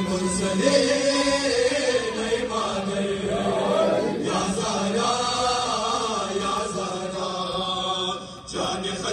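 Men's voices chanting a nauha, a Shia mourning lament for Fatima Zahra, as a sung, drawn-out melody. The chanting eases briefly near the end before picking up again.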